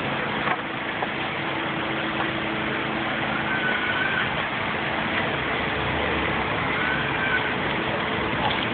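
Steady road-traffic noise with a vehicle engine idling, a continuous low rumble and hum, with a couple of faint short high whistling glides.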